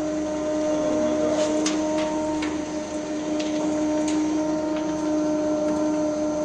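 Soap noodle plodder running with a steady electric motor hum while soap chips are fed by hand into its hopper, with a few light clicks and taps between about one and five seconds in.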